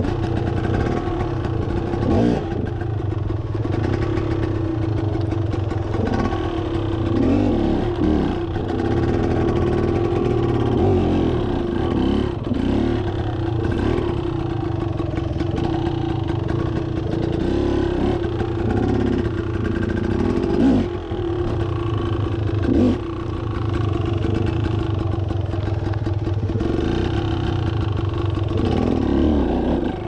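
Beta enduro motorcycle engine running at low revs with repeated throttle blips as the bike crawls over rocks, with occasional knocks.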